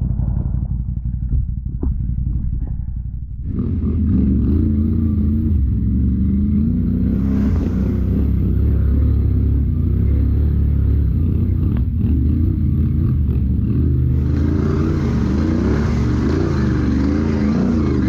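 ATV engine running at low revs, then about three and a half seconds in revving up hard and staying at high, wavering revs as it works under load. A hissing noise joins the engine about fourteen seconds in.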